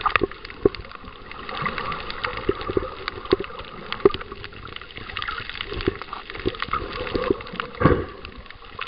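Underwater sound picked up by a submerged camera: water sloshing and gurgling against it, with many scattered sharp clicks and crackles, and one louder gurgling surge near the end.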